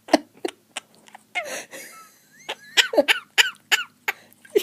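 Quaker parrot making a run of short, cough-like vocal clicks, a brief hiss about a second and a half in, then a quick series of sharp falling chirps.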